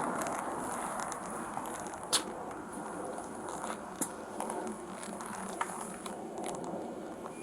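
Quiet rustling and crackling with a few sharp clicks, the loudest about two seconds in and others about four and five and a half seconds in.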